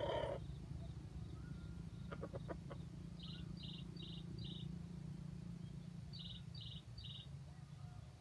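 Faint rural outdoor ambience: a high chirp repeated quickly in a run of four and then a run of three, over a steady low hum, with a few faint ticks about two seconds in.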